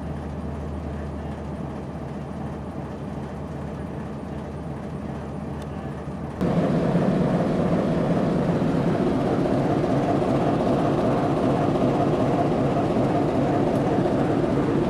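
Baldwin S12 switcher's six-cylinder turbocharged diesel engine running steadily with a low, even hum. About six seconds in, the sound jumps abruptly louder and fuller, heard up close from the walkway beside the engine hood.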